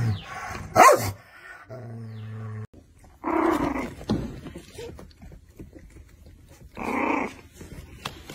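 A Rottweiler growling through bared teeth, with one sharp bark about a second in and then a low, steady growl. Then two short, rough dog growls a few seconds apart, with small clicks between.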